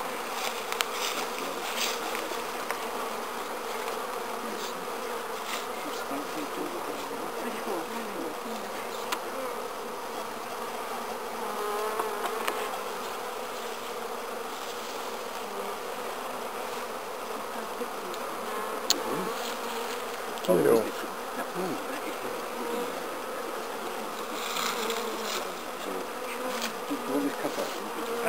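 Honeybee colony humming steadily from an open hive with its frames exposed, with one brief louder sound about two-thirds of the way in.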